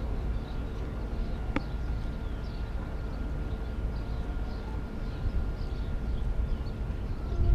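Outdoor ambience: a steady low rumble with a faint steady hum, a single sharp click about one and a half seconds in, and faint high chirps scattered throughout.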